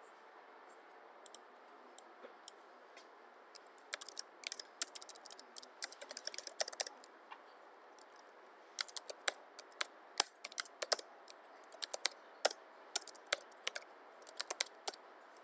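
Typing on a computer keyboard: a few single keystrokes at first, then quick runs of keys, with a pause about halfway through.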